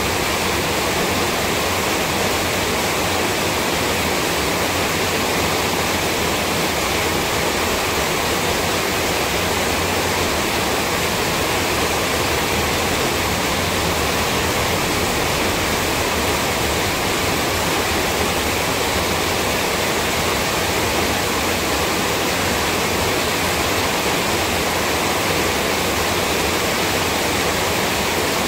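Steady, loud rushing noise spread evenly across high and low pitches, unchanging throughout, with no voice audible through it.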